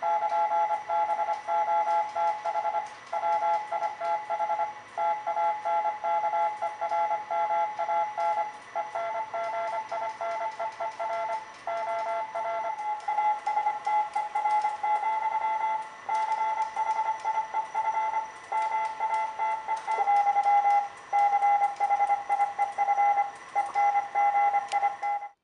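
Radio telegraphy tones from the station's receivers, keyed on and off in an irregular, Morse-like rhythm. For roughly the first half two pitches a little apart sound together, then from about halfway a single higher tone carries on, keyed the same way.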